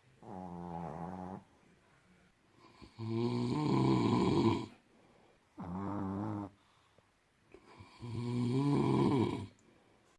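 Snoring from a sleeping man and a chihuahua: four snores with quiet gaps between, longer and louder ones about three and eight seconds in, shorter ones at the start and about six seconds in.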